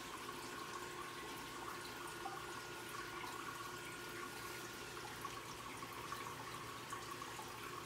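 Aquarium filter running: a steady trickle and bubbling of water with small drips, over a faint steady hum.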